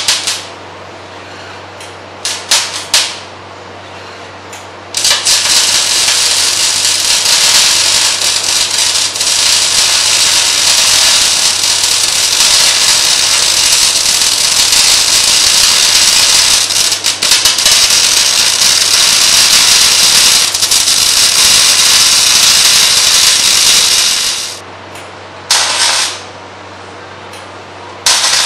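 MIG welding arc crackling and hissing as a steel seam is welded: a few short bursts at first, then one long unbroken run of about twenty seconds, then two short bursts near the end. A steady low hum runs underneath.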